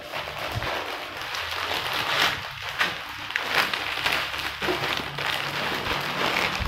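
Plastic snack packets and their plastic outer wrapping crinkling and rustling as a strip of joined packets is pulled out and handled, ending in a thump.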